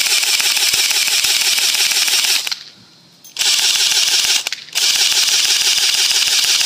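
Pulse M74DP battery-powered airsoft carbine firing on fully automatic in a fast, even mechanical rattle. It fires in three bursts with short pauses between, its four AA batteries running low.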